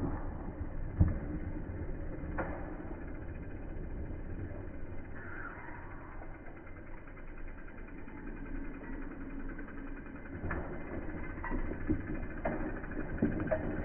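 Mountain bike riding over dirt jumps, with a few sharp knocks of the bike on the ground, the loudest about a second in and several more near the end, over a steady low rumble.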